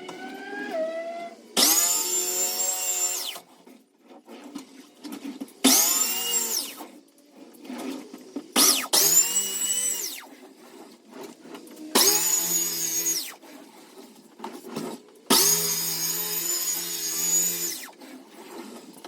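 Electric sander switched on and off in five short bursts, its motor spinning up to speed and winding down each time.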